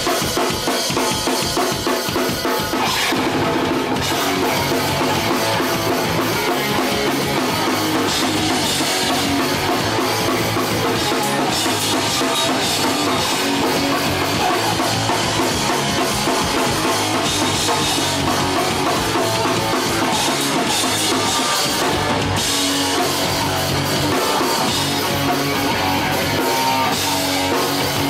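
Hardcore punk band playing live: distorted electric guitar and drum kit, loud and unbroken.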